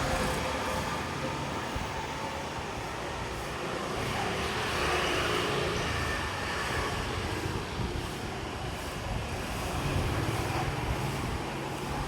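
Steady, even background noise that rises and falls gently, with no distinct events.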